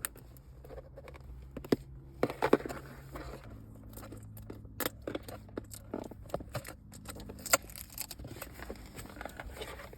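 A cardboard keyboard box and its packaging being opened and handled: scattered rustles, scrapes and light knocks and clicks, with a low steady hum underneath that shifts in pitch about three and a half seconds in.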